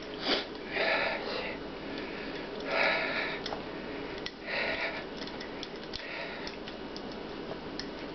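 A man breathing hard in short, sharp breaths and sniffs through the nose, winded from straining, every second or two, with a few faint clicks.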